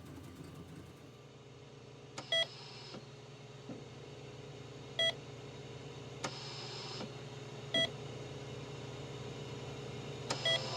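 Short electronic beep repeating four times, about every two and a half to three seconds, over a steady low hum, with brief soft hisses between and alongside the beeps.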